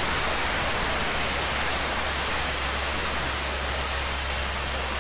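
Steady rushing hiss of compressed air blowing muddy water and rock cuttings out of the borehole around the drill rod, with a faint drilling-rig engine hum underneath.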